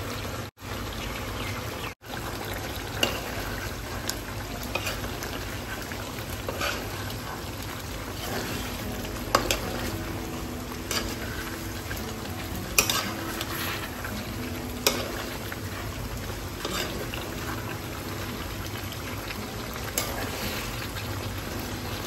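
Duck meat and potatoes sizzling and bubbling in a pan while a steel spatula stirs them, with scattered clicks and scrapes of the spatula against the pan every second or two.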